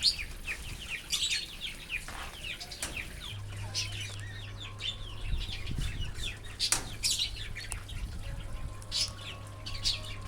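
A flock of pet budgies and lovebirds chirping and chattering, with many quick overlapping calls.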